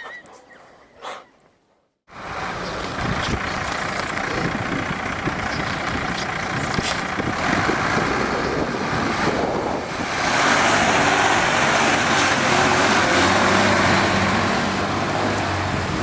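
Heavy truck engine, a snowplow by the scene, running steadily under load in deep snow. It cuts in about two seconds in and grows louder from about ten seconds in, with a thin high whine.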